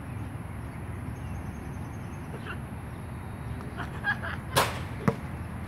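Steady low background noise, then a brief sharp whoosh about four and a half seconds in, followed half a second later by a single knock of a basketball bouncing on the court.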